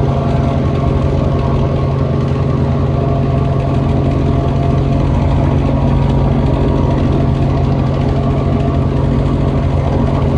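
Helicopter engine and rotors heard from inside the cabin in flight: a steady drone with a strong low hum and a fast, even flutter underneath.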